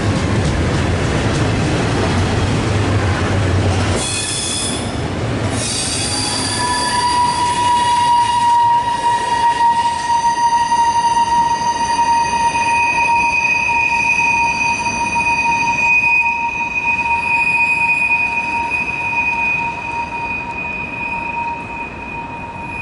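CSX double-stack intermodal freight train's well cars rolling past with a low rumble. About six seconds in, the wheels start squealing: several high, steady tones that hold to the end.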